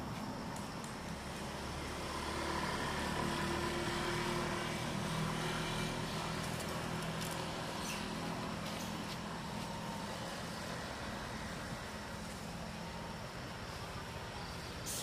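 A motor vehicle's engine hum under outdoor background noise. It grows louder about two seconds in and fades slowly after about six seconds.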